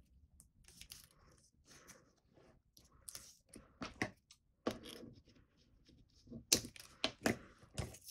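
Hands working with a strip of foam pads: scissors snipping it, release paper being peeled off, and the card panel rustling and being pressed. Irregular clicks and crinkles, busiest about six and a half to eight seconds in.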